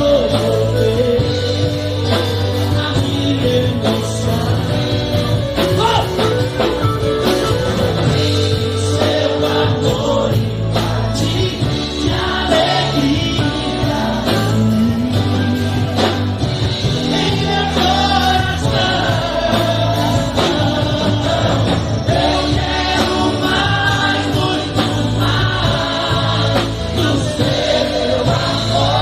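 Christian gospel song: singing over instrumental accompaniment with a steady bass line.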